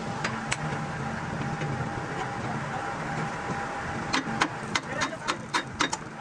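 Steady workshop machine hum with a faint held tone, then from about four seconds in a quick, irregular run of sharp knocks, several a second, typical of hand work on a steel truck frame.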